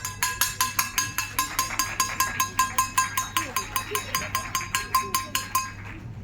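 School bell struck in rapid, even strokes, about five a second, each stroke ringing briefly and metallically; the ringing stops shortly before the end.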